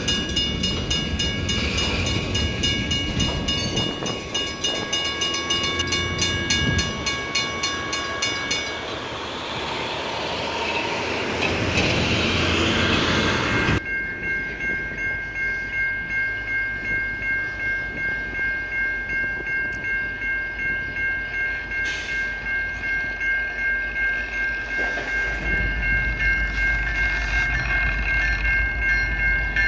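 Freight tank cars rolling past with wheels clacking over rail joints. After a cut, a level-crossing bell rings in a steady, regular pulse while a CN freight train led by SD70M-2 diesel locomotives approaches, its engine rumble growing near the end.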